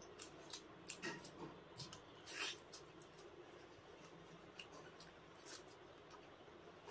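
Close-miked chewing and wet mouth smacks of a man eating egg curry and paratha: a run of short faint clicks, with a louder smack about two and a half seconds in.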